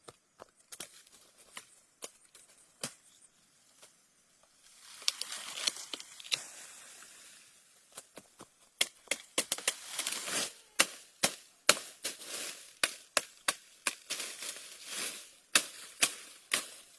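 Twigs and leaves being snapped and torn: sharp snaps and crackles, a few at first and then several a second in the second half, with a stretch of rustling about five seconds in.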